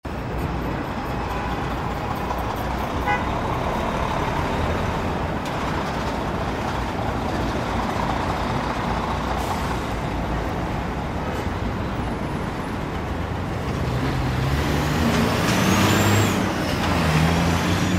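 Busy New York City intersection traffic din: a steady, dense wash of cars, trucks and buses. In the last few seconds a large vehicle's engine rumble grows louder, and there is a brief high gliding whine near the end.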